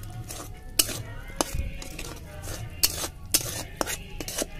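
Steel spoon stirring a frying onion, ginger-garlic and chili-powder masala in an aluminium kadai, scraping the pan with about five sharp clinks of metal on metal.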